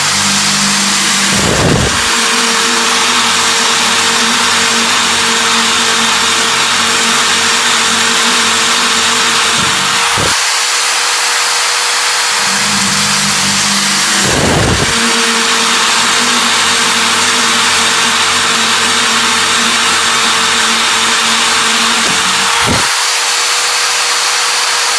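Power drill turning a brazed diamond core bit, its motor humming under a steady grinding hiss as it cuts a hole. The motor stops about ten seconds in and again near the end, starting up again a couple of seconds later each time, with a short loud burst soon after each start.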